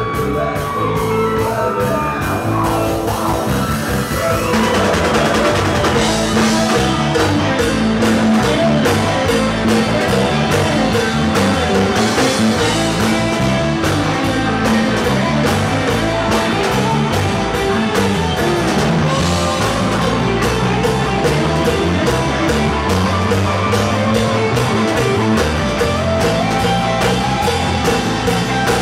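Live rock band playing amplified electric guitars, bass and drum kit; the drums and cymbals come in fuller about five seconds in, with a steady beat after that.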